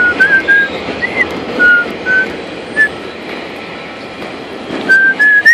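Steady rain hiss, with a string of short, clear whistled notes stepping up and down in pitch, more of them near the end.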